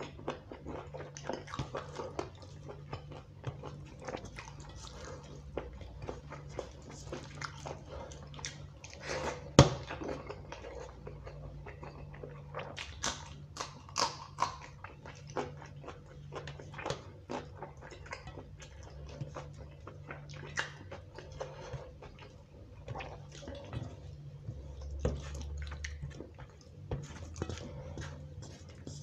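Close-up eating by hand: wet squishing as fingers mix khichuri rice with chicken curry on a steel plate, and chewing of mouthfuls, as many short soft clicks and squelches. One sharp click stands out about ten seconds in.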